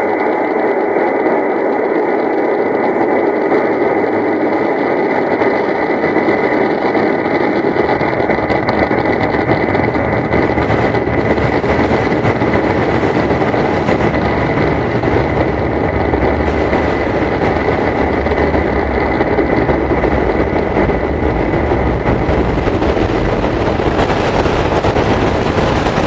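Long March 7 rocket's kerosene-fuelled YF-100 engines firing at liftoff and during the climb: a loud, steady rocket-exhaust noise. Its deep low rumble grows stronger about seven seconds in.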